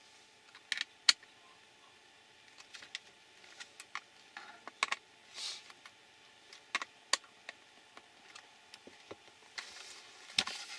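Scattered small clicks and taps of a hand screwdriver and plastic parts as a plastic RC car chassis is handled and screwed together, the sharpest click about a second in. A short rustle comes about five seconds in, and rustling with a few clicks near the end as the chassis is turned over.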